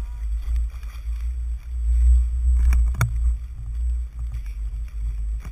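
Wind buffeting the microphone in a heavy, uneven low rumble over choppy water lapping, with a sharp knock about three seconds in.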